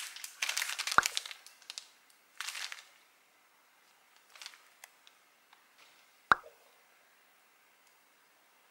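Clear plastic zip bags crinkling and rustling as they are handled, with a sharp click about a second in and another single sharp click after about six seconds.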